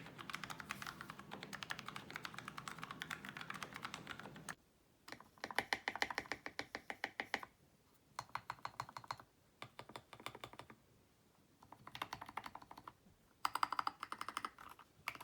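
Fast typing on modded mechanical keyboards with foam, lubed switches and tuned stabilizers, a rapid run of keystroke clacks. After about four seconds it cuts to quiet, then comes in short separate bursts of typing, the last starting near the end.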